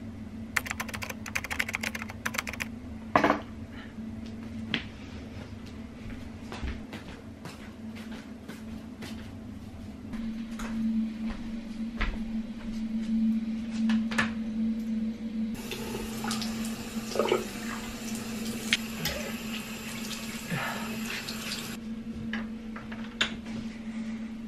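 Everyday household sounds: scattered clicks and knocks, with a water tap running for about six seconds in the second half, over a steady low hum.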